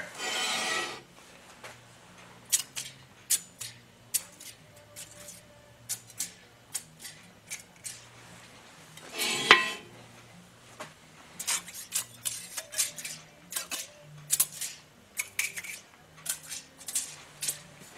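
Steel straightedge clicking and tapping against the freshly milled deck of a cast-iron AMC 258 engine block: scattered light metallic clicks, with one louder clink about nine and a half seconds in. The straightedge touching down evenly everywhere, with no room for a 1/1000 feeler gauge, is the sound of a perfectly flat deck.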